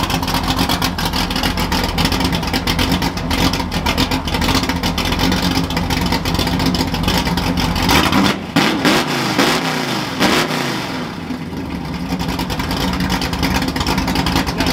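Ford F100 pickup's engine running with the old exhaust pulled off, a loud, rapid train of firing pulses. About eight seconds in it is revved, the pitch rising and falling a few times.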